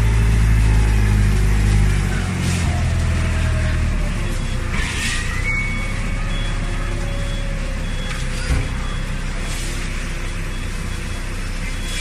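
Forklift engine and hydraulics running under load while lifting and carrying a heavy bale of compressed scrap; the deep hum eases off about two seconds in and again about four seconds in. A few short hissing bursts and faint repeated beeps come in the second half.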